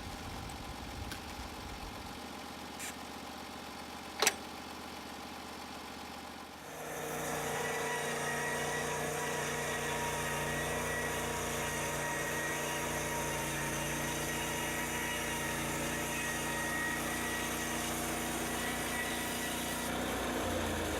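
Small engine of a portable band sawmill idling, with a sharp click about four seconds in. A few seconds later it speeds up over about a second and then runs steadily and louder at higher speed.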